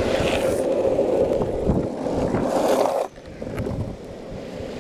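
Longboard wheels rolling over asphalt: a steady roll with a strong hum. About three seconds in it drops away sharply to a much quieter rolling noise.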